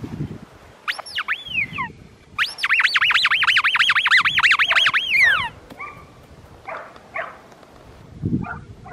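A squeaky dog toy squeezed over and over: two squeaks about a second in, then a quick run of about a dozen, about four a second, each rising and falling in pitch, followed by a few fainter squeaks.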